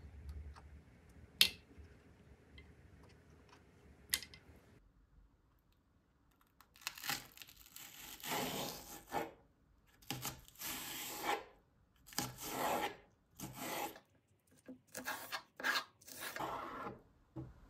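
A fork's tines dragged lengthwise through spring onion stalks on a plastic cutting board, shredding them into thin strips: a run of about ten rasping strokes, starting about seven seconds in. Before that, a few sharp clicks as ice cubes are pressed out of a silicone tray.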